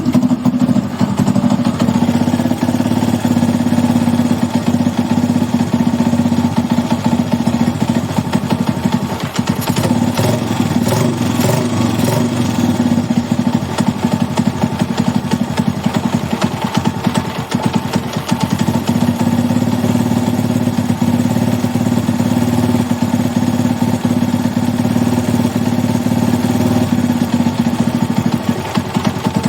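Honda Today scooter's small single-cylinder four-stroke engine running at a steady idle. It has a new crankshaft bearing and no longer makes the strange noise, which the bearing had caused.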